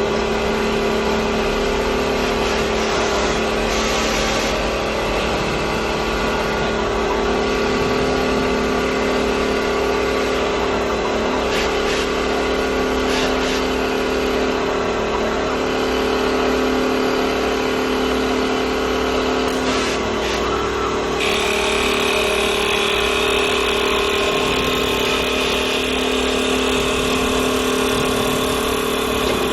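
CNC wood lathe running: a steady motor hum over a constant mechanical noise, with a few short clicks. About two-thirds of the way in, a higher hiss joins and carries on.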